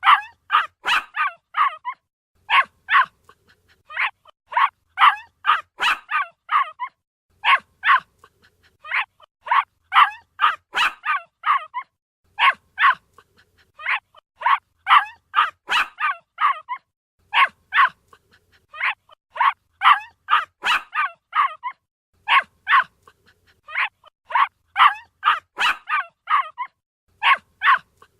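Puppy barking: short, high yips in quick bursts of several at a time, with brief pauses between the bursts.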